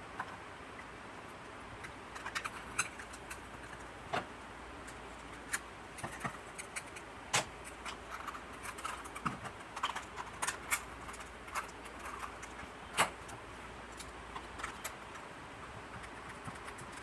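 Irregular light clicks and knocks of a plastic torch body being handled and closed up during reassembly, over a steady low hiss.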